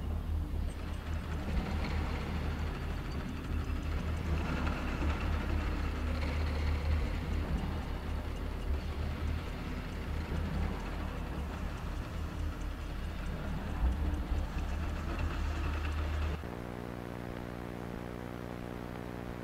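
A steady low rumble with a hiss above it, like machinery or room tone in a large space. About three-quarters of the way through it cuts off abruptly, giving way to a steady buzzing electronic hum made of many even tones.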